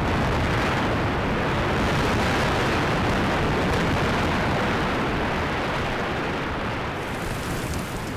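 Sustained rumble of a mountaintop-removal coal-mining blast as rock and dust pour down the blasted slope, easing off slightly near the end.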